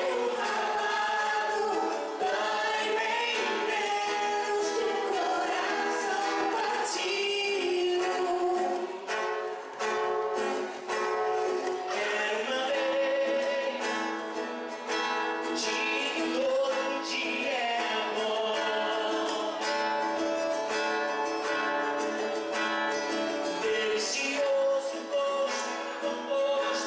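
Live song performance: a man and a woman singing into microphones, accompanied by an acoustic guitar.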